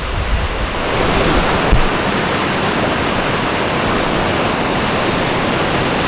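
Mountain stream rushing over boulders in white-water rapids, a loud, steady rush of water.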